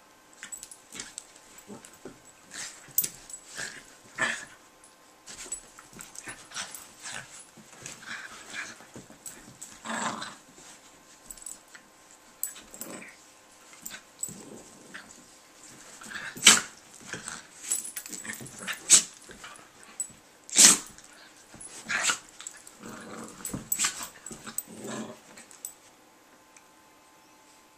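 Two dogs, a small tan terrier-type and a larger white shaggy dog, play-wrestling with growls and snaps in irregular bursts, two sharp ones much louder than the rest in the second half. The noise dies away shortly before the end.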